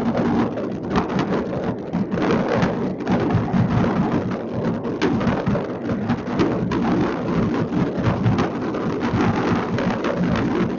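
Many fireworks going off at once across a city, heard from a distance: a dense, unbroken mass of bangs and crackles running together.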